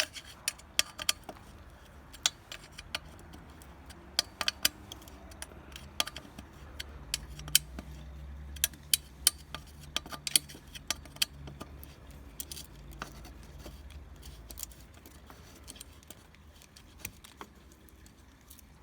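Irregular metal clicks and clinks of hand tools and bolts being worked on a 50cc minimoto's engine mounting.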